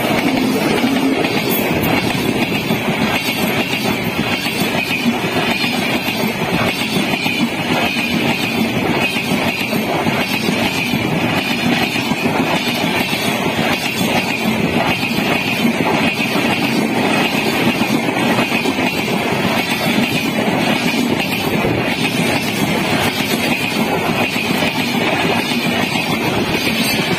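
Indian Railways electric locomotive and a rake of LHB passenger coaches passing close by at high speed: a loud, steady rush and rattle of steel wheels on the rails that carries on without a break.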